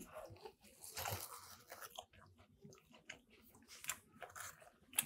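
A person biting into a sub sandwich on a soft, barely toasted roll and chewing it: faint, irregular mouth and chewing sounds, busiest about a second in and again near the end.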